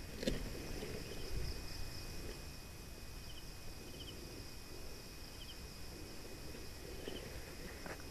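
Field insects, crickets among them, make a steady high-pitched buzz, with a short double chirp repeating every second or so. Underneath is soft rustling of okra leaves and footsteps as someone moves through the plants.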